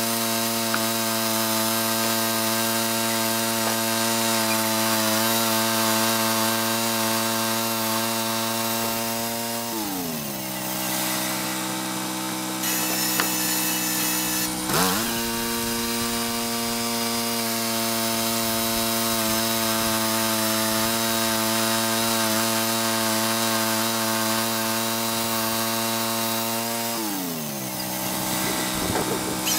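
Gas-engine portable bandsaw mill running steadily while its blade cuts through a large log. The engine's pitch falls about ten seconds in, climbs back a few seconds later, and falls again near the end.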